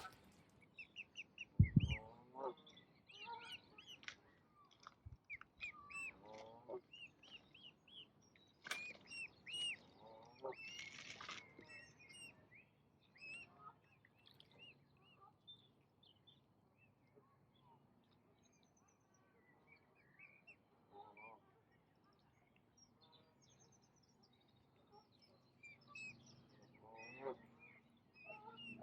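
Ducks quacking in short runs, with small birds chirping and twittering throughout; the calls thin out for a while in the middle. A brief low thump about two seconds in is the loudest sound.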